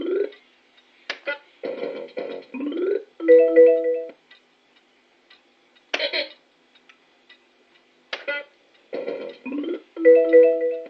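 Dennis the Menace fruit machine playing its electronic sound effects twice over: a quick pulsing bleep run while the reels spin, a rising sweep, then a loud held three-note chime. There is a short sharp noise about six seconds in.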